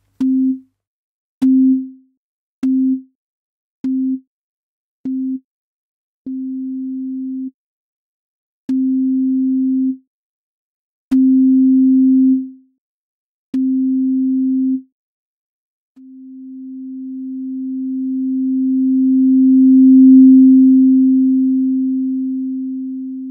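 Synthesized pure sine tone at one steady pitch, played in three groups of different lengths: a run of short beeps, then four longer tones of about a second and a half each, then one long tone that swells up to full loudness and fades away. It is a teaching test signal for duration and intensity, the loudness rising and falling within the groupings.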